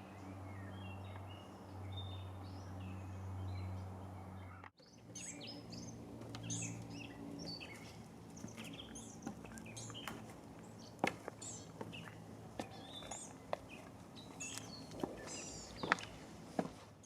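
Songbirds chirping and calling over a steady low hum. The hum is strongest for the first five seconds and weakens after an abrupt break. The chirps grow busier from then on, with a few sharp clicks among them.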